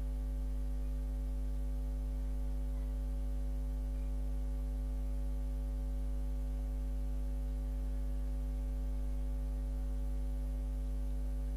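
Steady low electrical mains hum with a ladder of higher overtones, unchanging; no other sound stands out over it.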